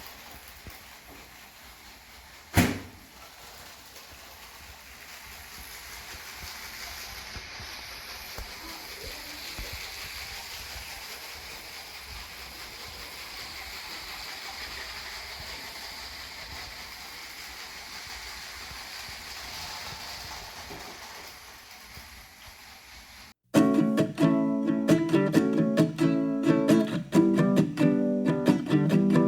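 A steady, quiet hiss with a single sharp knock about two and a half seconds in, then strummed acoustic guitar music starts abruptly and loudly near the end.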